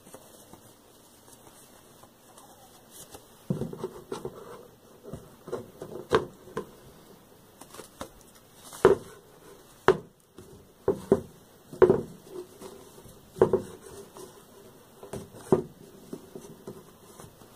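Handling noise from a sheer sock being stretched over a photo frame: fabric rubbing and scraping against the frame, with irregular sharp knocks and snaps from about three seconds in.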